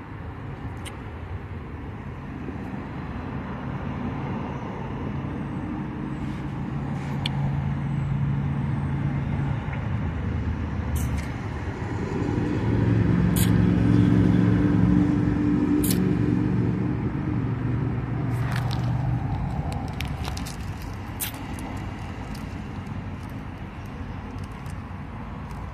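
Car engine on the street, a low hum that swells to its loudest about halfway through and then fades, with a few scattered sharp clicks.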